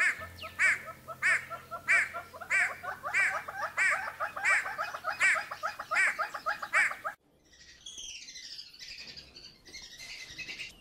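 Birds calling: a loud, pitched call repeats about every two-thirds of a second over fast, lower chattering. It cuts off sharply about seven seconds in, and fainter, higher chirps follow, each series falling in pitch.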